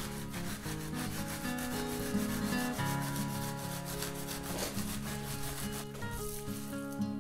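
Wooden trowel scraping in repeated strokes across a wet clay, sand and straw earthen floor mix, packing and smoothing it, over background guitar music.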